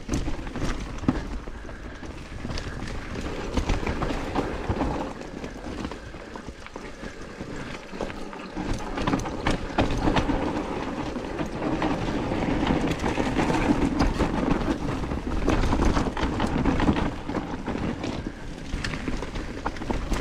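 Mountain bike rolling fast down a dirt trail: a steady rumble of tyres on the ground, broken by frequent rattles and knocks as the bike goes over bumps, swelling and easing with speed.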